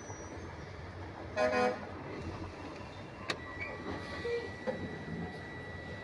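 A short horn toot about a second and a half in, then a sharp click, and from about three and a half seconds on a steady high electronic tone, all over a low steady hum.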